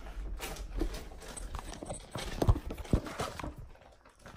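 Irregular knocks and thumps, with the two strongest a little past halfway, from footsteps and a phone being handled and picked up up close.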